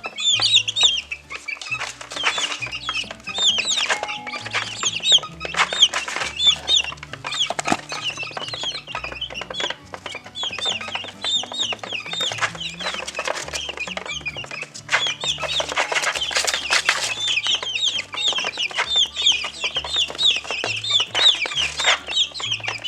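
Many birds calling continuously, a dense stream of short high chirps, over background music with a low stepping bass line.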